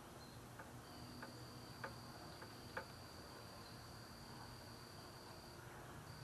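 Near silence, with a faint, steady, high-pitched insect trill that breaks off briefly near the start and near the end, and a few faint clicks.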